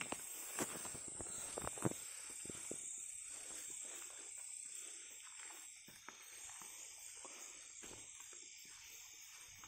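Faint footsteps and rustling through low plants on a dirt path, with a few sharper clicks in the first two seconds. A steady high-pitched chorus of night insects runs behind.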